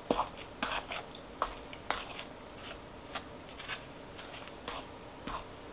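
Wooden spoon stirring dry flour into a wet cookie-dough mixture in a ceramic bowl: soft scrapes and light knocks against the bowl, roughly one every half second.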